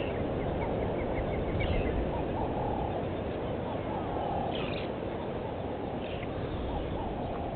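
Wild birds calling over a steady background hiss: a quick run of chirps in the first two seconds, then short calls repeated every second or two.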